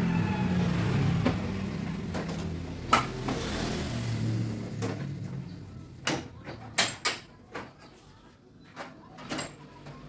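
Plastic side cover of a Canon iR6570 photocopier being unclipped and worked loose: a handful of sharp clicks and knocks in the second half, after a low hum that fades out about halfway through.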